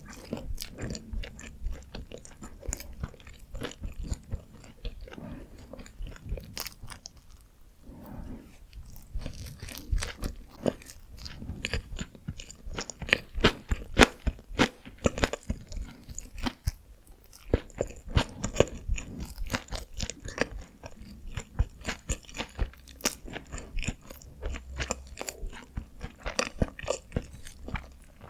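Close-miked eating of Korean steamed buns (hoppang): steady chewing and biting with many sharp, wet mouth clicks, thickest in the middle stretch.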